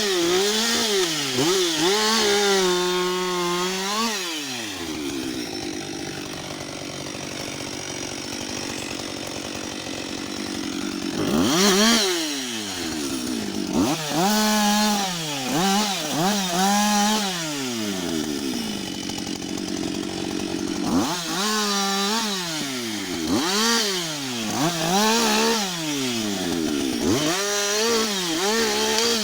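Husqvarna 560 XP two-stroke chainsaw, its engine revving up and falling back again and again as the throttle is opened and released, with a steadier, quieter stretch of running about five seconds in that lasts several seconds.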